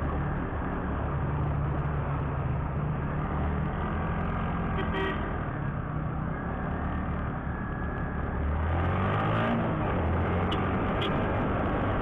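Motorcycle engine running at low speed on a rough road, under wind and road noise, with a short horn toot about five seconds in. About nine seconds in the engine note rises as the bike speeds up, and two short ticks follow near the end.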